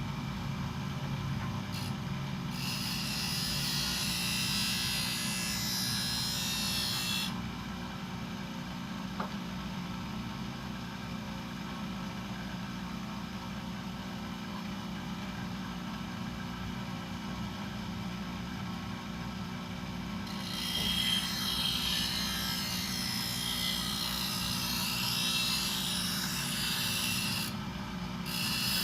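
Bench grinder running steadily while a thickness planer blade is held against the wheel for sharpening. There are two long stretches of high grinding hiss, from about two and a half to seven seconds in and again from about twenty to twenty-seven seconds in.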